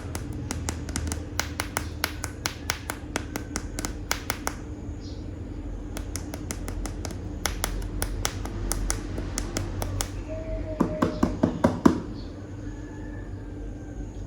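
Rapid series of sharp plastic clicks and taps, several a second, from hard plastic animal toy figures being handled. There are two runs with a short pause between them, then a louder, tighter cluster of clicks near the end.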